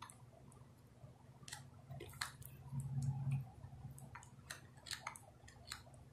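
Faint clicks and rustling of plastic cable connectors and wires being handled as the solar panel lead is fitted to the floodlight's lead, with a short low hum near the middle.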